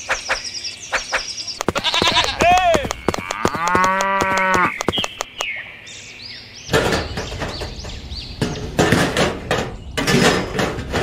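A cow mooing once, a dubbed-in sound effect, about four seconds in. From the middle on, sand scrapes and rustles in gritty bursts as a gloved hand works a plastic pond liner loose from the sand.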